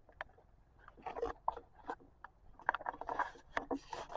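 Irregular small clicks, taps and rustling from toys being handled and rummaged through, denser in the second half.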